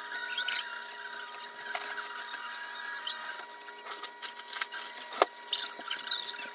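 Hot wood-burning pen tip scratching and sizzling against bare wood as letters are burned in, over a faint steady tone. There is a sharp click about five seconds in.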